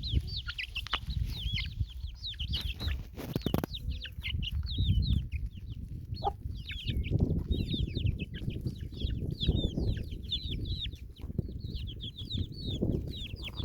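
Many young chickens peeping: a dense chorus of short, falling chirps over a low rumble, with a sharp knock about three and a half seconds in.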